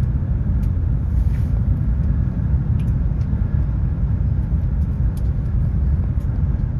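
Steady low rumble of a high-speed train cabin while the train is running, with a few faint ticks.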